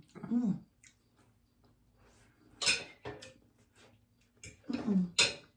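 Eating at a table: about three short clatters of a plate and utensils, with brief murmured vocal sounds near the start and end.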